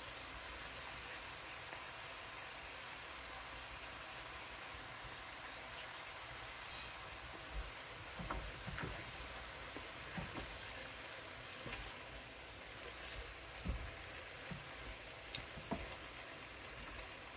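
Chicken and sauce sizzling in a pan on the stove, a steady faint hiss, with a few scattered knocks from about eight seconds in.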